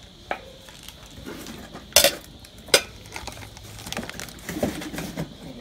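Corelle tempered-glass (Vitrelle) bowls and plates clinking against each other as they are handled and unstacked: a few light clinks, with two sharp, loud ones about two seconds in and under a second apart.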